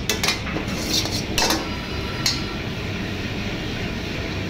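A steel ladle scraping and knocking against a wok as fried rice is stir-fried, a few sharp clanks in the first two and a half seconds, over a steady rushing noise.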